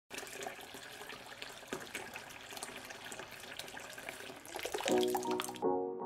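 Kitchen tap running steadily into a sink as it fills with warm, soapy water. Near the end, music with sharply struck notes comes in, and the water sound cuts off just after.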